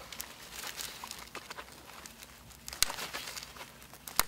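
Side cutters snipping around a small metal tent eyelet set in canvas, to cut it out, with the canvas rustling and crinkling as it is handled. A few sharp clicks come from the cutter jaws, the loudest about three seconds in and near the end.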